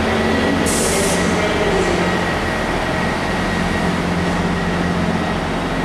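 Diesel multiple unit's engines running steadily as the train pulls out of the station, with a short hiss of air about a second in.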